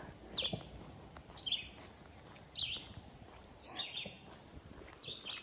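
A bird repeating a short, high, falling chirp about once a second, five times, over faint outdoor background noise.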